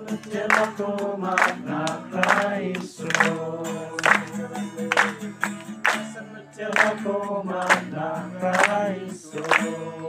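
A congregation singing a worship song to a strummed acoustic guitar, clapping their hands together on the beat about once a second.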